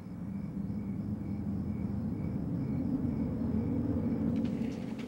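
Low, steady rumble of a vehicle's engine heard from inside the cab, swelling toward the middle and easing near the end.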